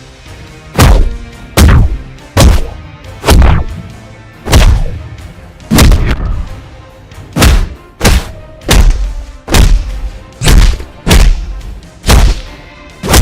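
A rapid string of hard-hitting cinematic fight impact sound effects, superhero-style punches and blasts, about one heavy hit a second, each with a short fading tail. The first hit lands a little under a second in.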